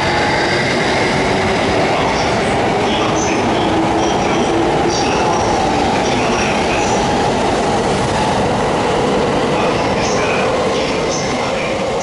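JR East E235 series Yamanote Line train pulling out of the station, giving steady rail running noise with scattered short, high wheel squeals. The noise fades near the end.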